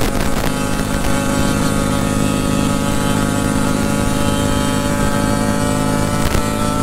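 Crypton 135 underbone motorcycle's single-cylinder four-stroke engine running steadily at cruising speed, its note holding one pitch, with a brief knock about six seconds in.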